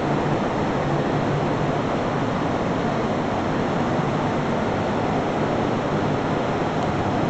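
Steady, unbroken rushing of a cheese store's cooling and ventilation fans.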